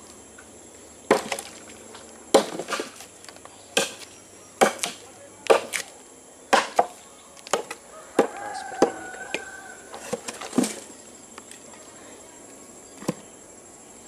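A forged golok (bone-chopping machete) chopping into a dry log: about a dozen sharp chops at an uneven pace, stopping a few seconds before the end apart from one last knock.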